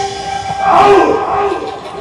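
A man's amplified stage voice in long, drawn-out cries that bend in pitch, loudest about halfway through.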